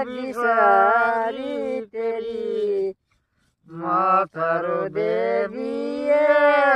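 A woman and a man singing a Pahari folk song without accompaniment, in long held, chant-like phrases, with a brief pause about halfway through.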